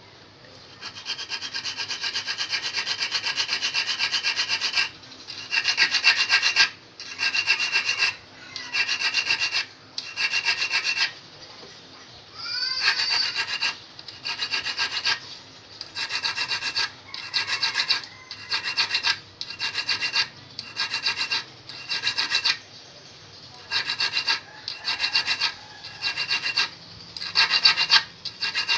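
Small needle file rasping on the steel point and barb of a fishhook. A steady run of quick strokes for the first few seconds gives way to short bursts of strokes with brief pauses, with a thin high metallic ring in each burst.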